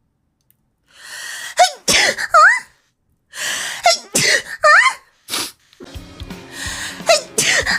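A person sneezing three times in a row. Each sneeze is a breathy in-breath, then a sharp burst, ending in a high, squeaky cry that swoops up and back down.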